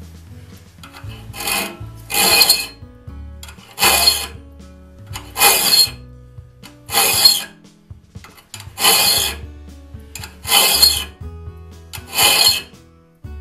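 A hand file scraping across the steel raker teeth of a one-man crosscut saw, in about eight separate strokes roughly a second and a half apart, taking the rakers down to 15 thousandths below the cutting teeth.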